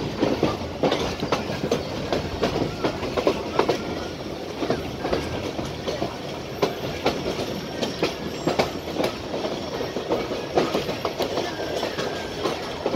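Passenger train running, heard from aboard: the wheels clatter over the rail joints in a run of irregular clicks and knocks over a steady rumble.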